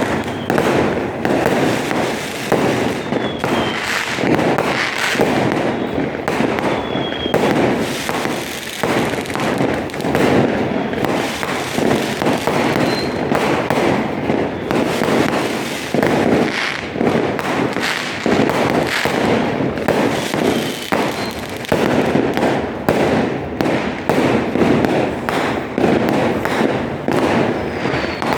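Fireworks display: a continuous, loud barrage of overlapping bangs and crackling with no let-up.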